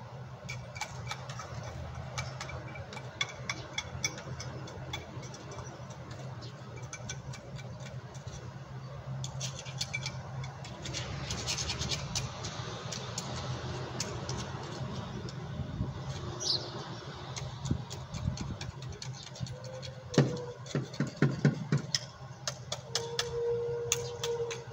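Small clicks, scrapes and metal knocks from handling hermetic refrigerator compressors, with a cluster of sharper knocks a few seconds before the end. A steady low mechanical hum runs underneath throughout.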